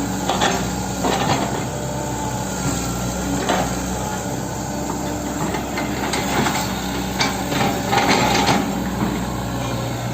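Hitachi 110 M excavator's diesel engine running steadily under work, with several sharp knocks and clanks from the working machine, a cluster of them near the end.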